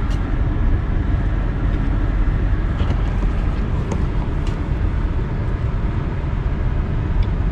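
Steady low road rumble and hiss inside a moving car's cabin, with a few faint light ticks over it.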